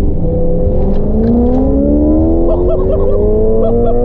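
Car engine heard from inside the cabin, pulling hard through a gear under acceleration: its pitch drops with a gear change at the start, then climbs steadily for about four seconds, over a constant low road and wind rumble.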